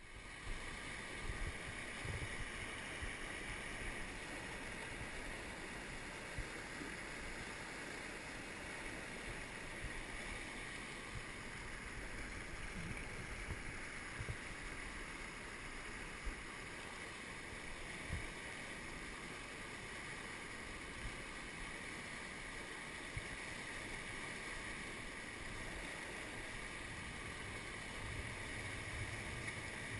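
Kern River rushing over rocks in a riffle: a steady wash of flowing water, with a few brief low bumps now and then.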